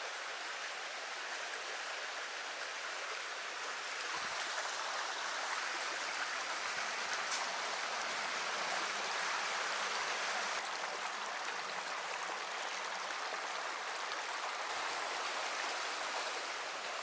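Shallow stream running over rocks in a riffle: a steady water noise that swells a little after about four seconds and eases near the end.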